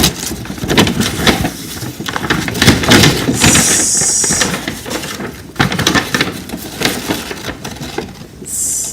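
Sheets of paper being handled and shuffled: irregular rustling and crinkling with soft knocks, and two brief hissy swishes, the longer about three and a half seconds in and a shorter one near the end.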